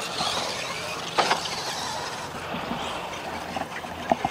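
RC monster truck's electric drivetrain running as it drives over dirt, a mechanical gear-and-tyre noise, with two sharp knocks, a loud one about a second in and a smaller one near the end.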